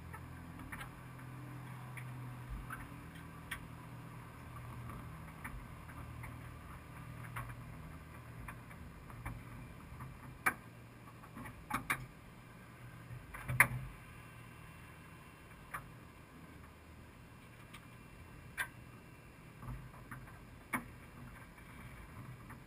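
Faint low hum with about a dozen scattered sharp clicks and knocks, the loudest about halfway through; the hum is weaker in the second half.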